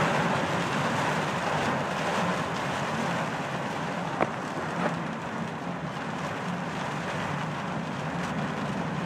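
Heavy rain and wet-road tyre noise heard from inside a moving car's cabin: a steady rushing hiss, with a couple of sharp ticks about four and five seconds in.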